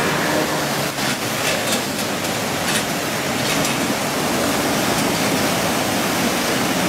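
Fast-flowing muddy floodwater rushing across a road, a steady loud noise of churning water.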